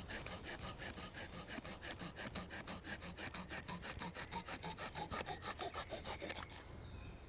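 Small folding wood saw of a Victorinox Swiss Army knife cutting through a wooden stick with quick, even strokes, about five or six a second, that stop shortly before the end.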